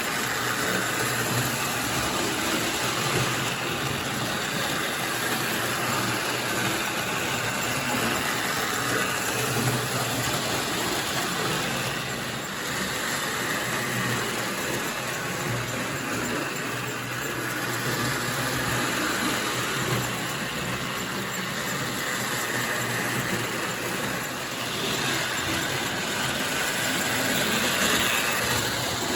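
Lionel toy train with its 1130 Scout steam locomotive running on track: a steady whir and rumble of the electric motor and wheels, rising and falling in loudness every several seconds.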